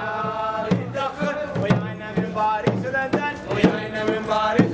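Men's voices chanting in unison to a two-headed barrel drum beaten in a steady rhythm, about one to two strikes a second.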